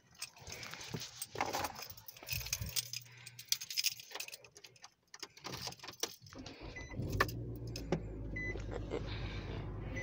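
Keys jangling and small objects clicking and rattling inside a car for several seconds. About six and a half seconds in, the car starts and a steady low hum of it running sets in, with a few short high tones over it.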